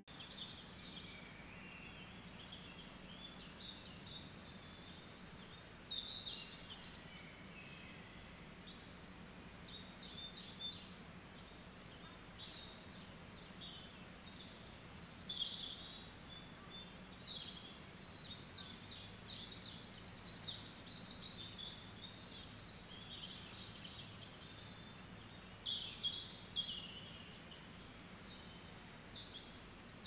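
Songbirds singing, with many short, high, quickly repeated chirps and trills over a faint steady background hiss. The singing is busiest twice, about five to nine seconds in and again about nineteen to twenty-three seconds in.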